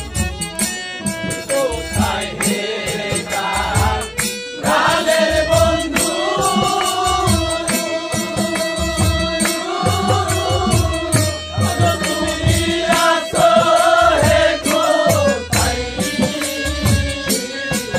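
Live Bengali bicched gaan folk song: a harmonium plays over steady drum beats, and from about four and a half seconds in a voice sings long, drawn-out lines over them.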